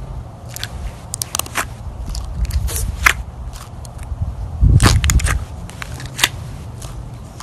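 Clear glitter slime being squished and worked by hand, with irregular sharp pops and clicks. A louder, fuller squish comes a little after halfway.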